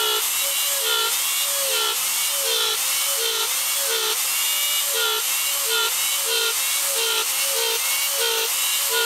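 Electric rotary tool with a concave eye cutter whining at high speed as it is plunged repeatedly into wood. The motor pitch dips briefly each time the cutter bites, about every half second, as it cuts one eye-shaped dimple after another.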